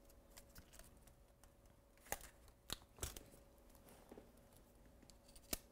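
Near silence with about four faint, sharp clicks and taps from hands handling a MacBook laptop, over a faint steady hum.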